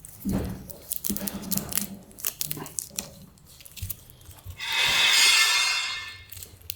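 Packaging being handled as the scooter is unboxed: a run of crackles and snaps, then one long tearing sound of about a second and a half near the end.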